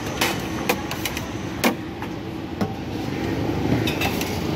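Steady roadside traffic noise with a handful of sharp, irregular clicks and knocks.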